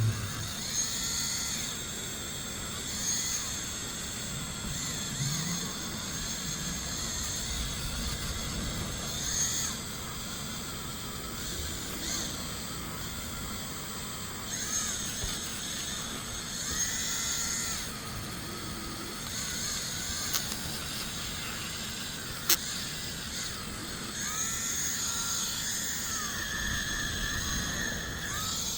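Small high-speed rotary tool running with a steady whine while it buffs a copper-plated 3D print with white diamond compound. Its pitch dips and recovers several times as it is worked against the piece, and there is one sharp click about two-thirds of the way through.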